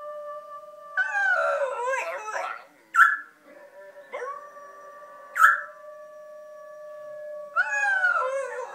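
Dog howling, with long steady held notes and two stretches of wavering yelps, mixed with an African grey parrot answering it. Two short, sharp squawks about two and a half seconds apart are the loudest sounds.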